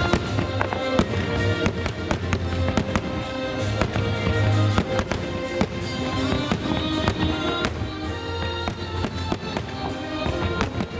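Aerial fireworks bursting in quick succession, many sharp bangs and crackles at irregular intervals, over continuous music.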